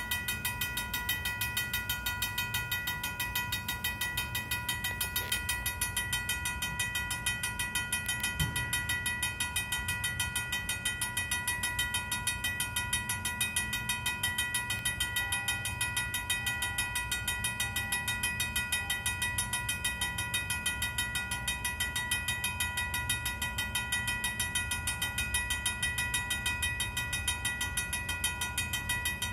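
Old mechanical railroad-crossing bell ringing fast and steadily, a rapid even train of metallic strikes with a bright ringing tone that never slows. The crossing is still activated for a stopped train.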